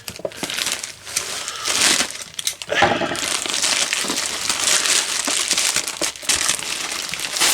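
Packaging crinkling and rustling in irregular handling noises as a boxed computer keyboard is unpacked.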